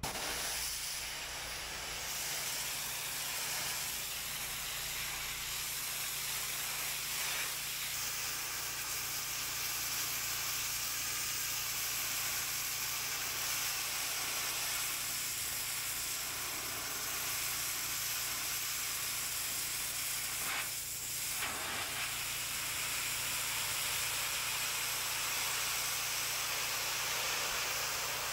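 Pressure washer spraying a jet of water onto paving: a steady hiss over the low hum of the machine's motor, briefly broken about two-thirds of the way through.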